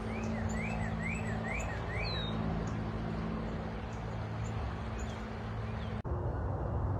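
Songbirds calling outdoors: a quick series of five rising-and-falling notes in the first two seconds, then a single falling note and scattered high chips, over a steady low hum. The sound cuts off abruptly about six seconds in.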